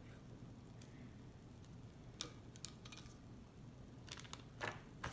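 Faint clicks and light rustling of small plastic toy pieces and packaging being handled: a few sharp ticks about two seconds in, then a busier cluster of clicks near the end.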